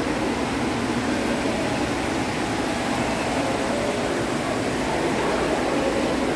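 Steady hum and hiss of air conditioning in an indoor aquarium hall, even throughout with no sudden sounds.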